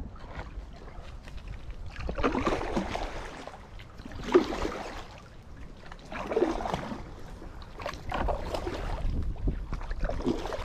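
Kayak paddle strokes splashing in choppy water about every two seconds, over a low rumble of wind on the microphone.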